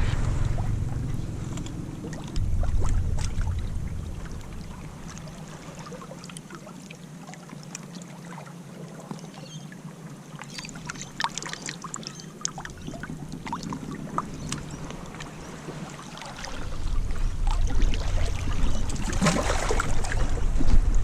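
Wind buffeting the microphone on a surf beach, with waves behind it. The wind eases off in the middle and gusts up again near the end, and a few faint clicks come through in the calmer stretch.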